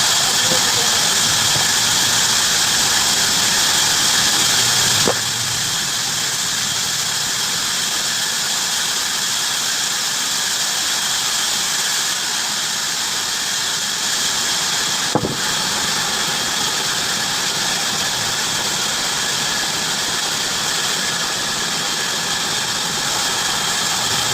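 Heavy-duty bandsaw cutting through wood: a steady, high-pitched squealing hiss of the blade in the timber, over the machine's motor. The level drops a little about five seconds in, and there is a single sharp click about fifteen seconds in.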